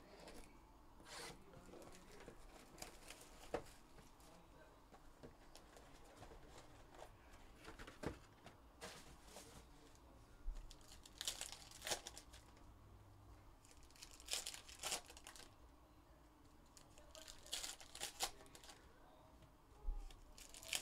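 Faint, intermittent crinkling and tearing of foil trading-card pack wrappers as a box of 2021 Upper Deck Goodwin Champions packs is opened, with bunches of quick tears and rustles in the second half.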